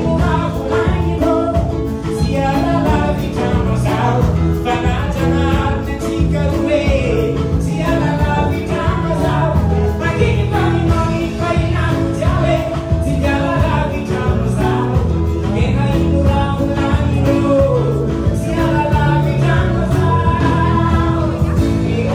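Live band music: a singer's voice over an electric bass guitar and drum kit, playing a steady, continuous song.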